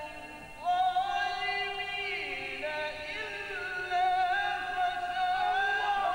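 A man reciting the Quran in a melodic, ornamented chant. He takes a short breath about half a second in, then resumes with long held notes, slow glides and rapid turns.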